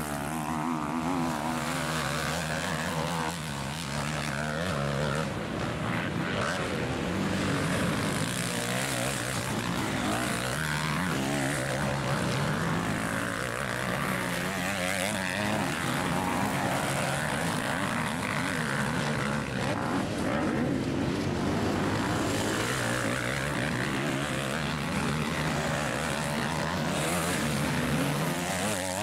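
Motocross bike engines revving up and down, several machines overlapping as they accelerate and back off.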